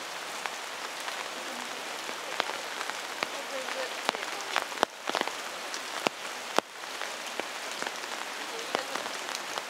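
Steady rain falling on a pond: a constant even hiss, with sharp taps of drops landing close by several times.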